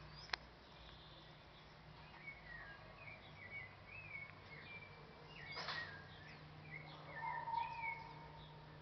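Small birds chirping and twittering faintly in many short rising and falling notes, with a held whistled note near the end. A sharp click comes just after the start, and a short burst of noise about six seconds in, over a steady low hum.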